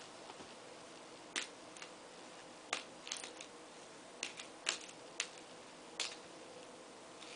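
Faint, irregular light clicks and rattles, about a dozen spread over several seconds, from a small poodle puppy playing with toys on a blanket, over a low steady room hum.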